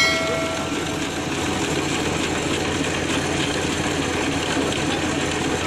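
A metallic clang ringing for about a second at the start, then the steady running of an electric-motor-driven line boring rig machining a worn excavator bucket pin bore back to size.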